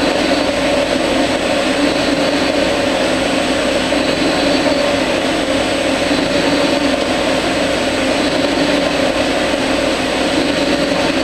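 Arduino-controlled metal lathe turning a steel axle under coolant: a steady machine drone with a held hum and a high whine.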